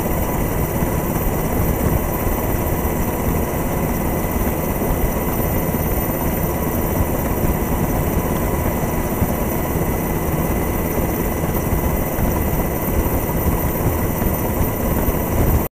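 Steady helicopter engine and rotor noise heard from aboard the aircraft, with a constant high whine over it; it cuts off suddenly at the end.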